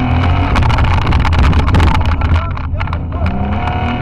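Off-road vehicle's engine running hard, heard from inside the roll-caged cabin, with many sharp rattles and knocks from the body and cage as it drives over the field. It is loudest around the middle.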